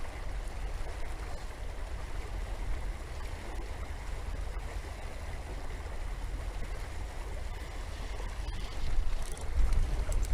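River water rushing steadily, with wind rumbling on the microphone; the noise swells louder near the end.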